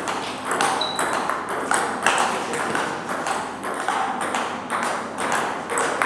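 Table tennis rally: the ball clicking off the bats and the table in quick succession, one bat faced with Sauer & Troeger Schmerz OX long-pimple rubber. Hits from a neighbouring table mix in.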